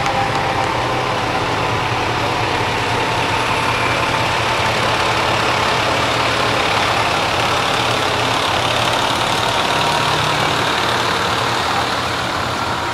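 Diesel fire engine driving slowly past, its engine running steadily, with a thin high tone that slowly falls in pitch as it goes by.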